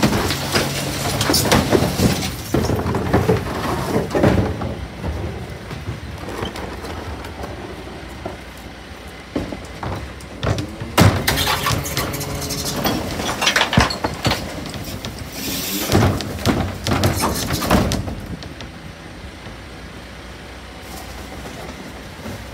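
A rear-loader garbage truck's hydraulic bin lifter tips wheelie bins into the hopper, and the contents clatter and crash in, in three bursts, over the steady hum of the truck's engine and hydraulics. It is quieter after the last burst, near the end.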